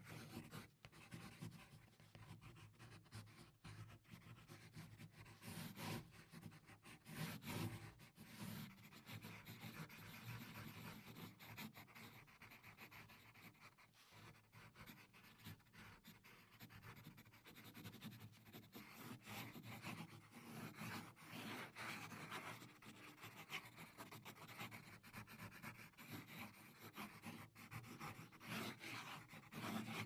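Pencil writing quickly on paper, as in shorthand: a faint, continuous scratching made of many short strokes.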